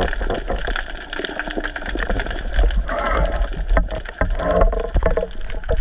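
Water gurgling and sloshing around the camera, with a steady low rumble and dense crackling clicks throughout, and bubbly gurgles about three seconds in and again past four seconds.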